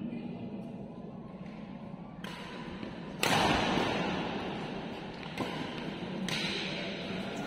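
Badminton rackets striking a shuttlecock during a rally, several sharp hits about a second apart, each trailing into the echo of a large hall; the loudest hit comes about three seconds in.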